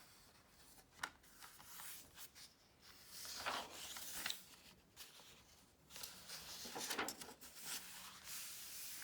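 Faint rustling of a picture book's paper pages being handled and turned, in a few short bursts with a soft click about a second in.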